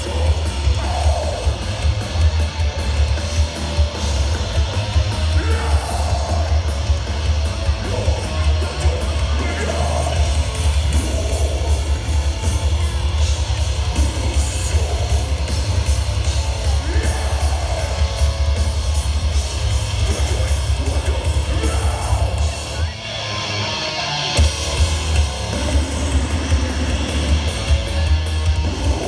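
Live heavy metal: a death metal band playing loud, distorted guitars over a heavy, booming low end. Near the end the low end drops out for about a second and a half, then the full band comes back in.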